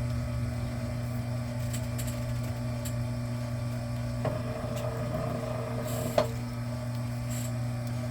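Electric wire-stripping machine's motor running with a steady hum, with a few light clicks and knocks of wire being handled, the sharpest about six seconds in.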